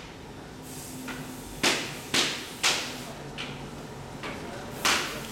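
A series of sharp knocks: three loud ones about half a second apart, two fainter ones, then another loud one near the end, each ringing briefly, over a faint low hum.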